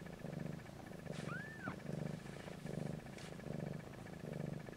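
Snowshoe Siamese mother cat purring in an even rhythm, each breath a low pulse, as she lies with her newborn kittens nursing. About a second and a half in, a newborn kitten gives one short, high squeak that rises and falls.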